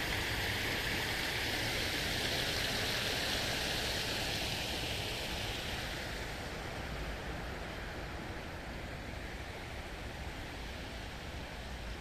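Steady hiss of running or splashing water, which fades about halfway through as the source falls behind.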